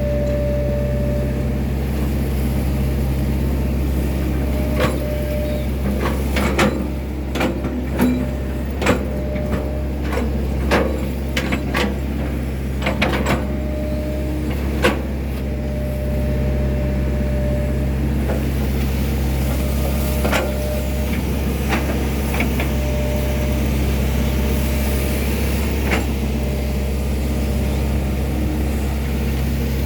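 Excavator's diesel engine running steadily under work, with a series of sharp knocks and clanks from the machine working, bunched in the first half and scattered later.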